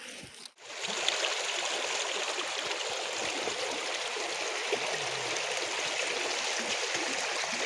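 River water flowing steadily, an even rush of moving water. It comes in suddenly about half a second in.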